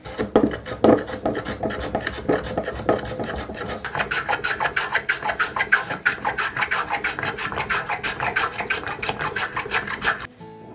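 Metal hand plane taking quick, short strokes on a small piece of wood, each pass a scraping cut as the blade lifts a shaving. The strokes come faster about four seconds in and stop shortly before the end.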